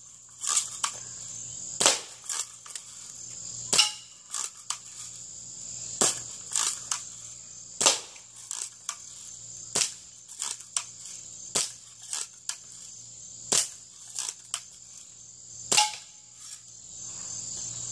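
Daisy BB gun fired over and over as fast as the shooter can, a sharp shot about every two seconds, each followed by a few lighter clicks. Insects chirp steadily in the background.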